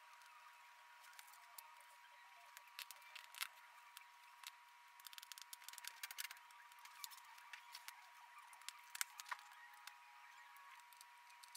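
Faint clicks and ticks of a small screwdriver driving screws into a laptop LCD panel's metal mounting frame, with a dense run of quick ticks in the middle and a few sharper clicks. A faint steady tone runs underneath.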